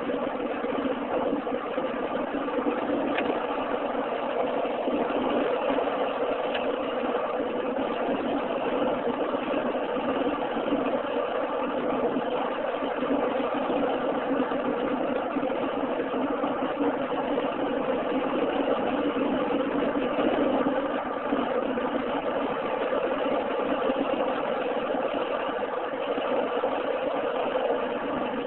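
Steady in-cabin noise of a car cruising at highway speed: engine drone and tyre noise on the road, with an even hum that does not change.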